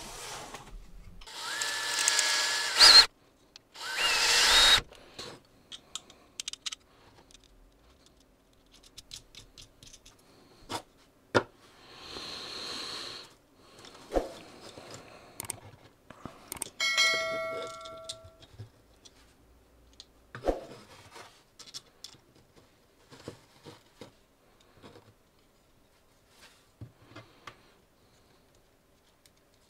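Hands assembling small 3D-printed plastic parts with screws: scattered light clicks and taps of plastic and metal screws being handled. Near the start come two loud bursts of noise a couple of seconds long with a wavering whine in them, and a brief cluster of steady tones sounds about halfway through.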